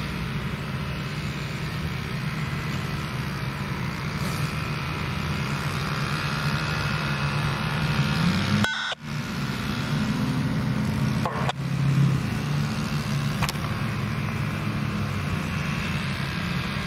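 Steady vehicle rumble with a low hum, briefly cutting out about nine seconds in.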